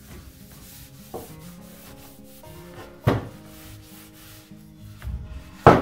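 Cloth rubbing over an oiled wooden cutting board, with two sharp knocks of the wooden board being set down, about three seconds in and again near the end. Background music plays underneath.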